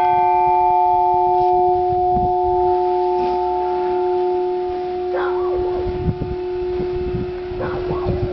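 Church bell ringing on after a strike: a steady low hum with a few clear overtones, the higher ones fading within the first couple of seconds. Wind rumble on the microphone and a few short chirps sit underneath.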